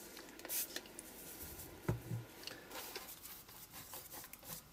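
A paintbrush scratching and swishing thin white gesso across a paper collage page, in many small strokes. A short hiss comes near the start, and a single sharp knock just before two seconds in as a bottle is set down on the craft mat.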